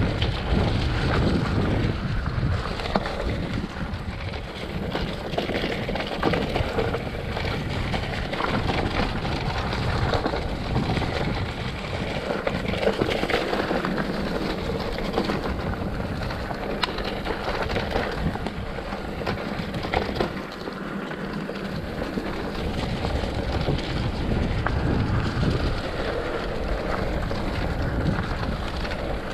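Wind rushing over the microphone with tyre noise and a stream of small clicks and rattles from a bicycle riding down a rough trail.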